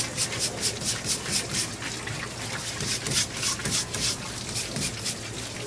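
Stiff plastic scrub brush scrubbing wet yakogai sea snail meat on a plastic cutting board, in quick back-and-forth strokes about four a second.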